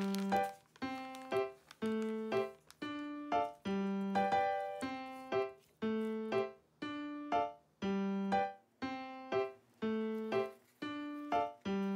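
Background music: a light keyboard tune of short, evenly spaced notes, each ringing out and fading.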